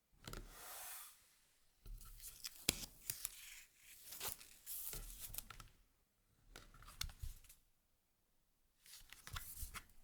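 Packaging being torn and crinkled in several short bursts, with light clicks and taps in between.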